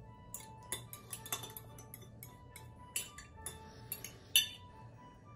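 Irregular light clinks and taps of a utensil against a bowl, some leaving a brief ring, as beaten eggs are emptied into the dough bowl. The sharpest clink comes near the end.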